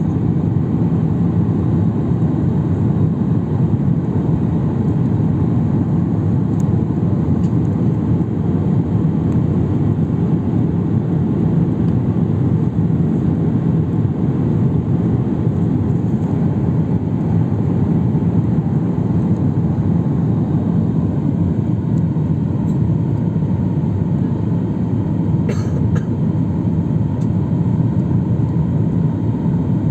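Steady airliner cabin noise heard from inside the cabin: the even, low rush of the engines and the air streaming past the fuselage.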